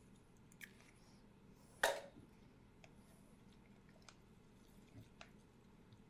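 A utensil mixing egg into flaked tuna in a plastic mixing bowl: soft squelching with a few short clicks and taps against the bowl, one louder tap about two seconds in.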